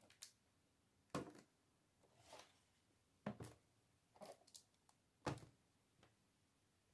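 Cardboard perfume boxes set down one after another on a boxed gift set: four sharp knocks, with softer rustling between them.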